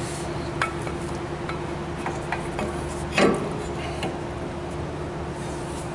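Scattered light clicks and knocks of a brake caliper with new pads being worked over a front disc rotor as it refuses to seat, with one louder clunk a little past the middle, over a steady hum.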